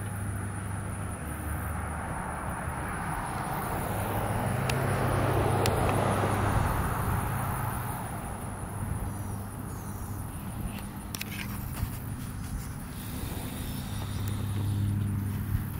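A vehicle passing by: tyre and engine noise swells over a few seconds, peaks, then fades away, over a low steady hum, with a few faint clicks later.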